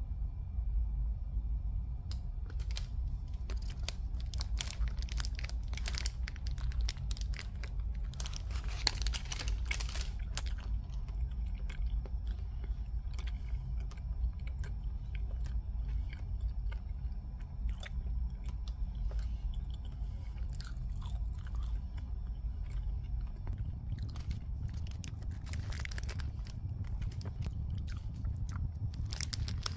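A person biting and chewing crunchy food: irregular crunches, heaviest about nine seconds in and again near the end, over a steady low hum.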